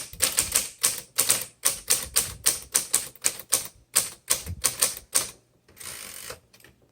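A 1954 Voss ST24 manual typewriter being typed on: a quick, even run of sharp keystroke clacks, about four a second. The clacks stop after about five seconds and are followed by a short rasping noise.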